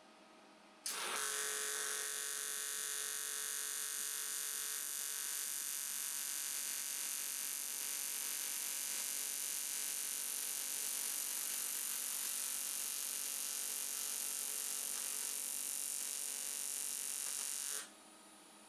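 AC TIG welding arc on aluminium, at about 100 Hz balance frequency: a steady buzzing hum with a bright hiss over it, starting sharply about a second in, holding level, and cutting off near the end as the foot pedal is released.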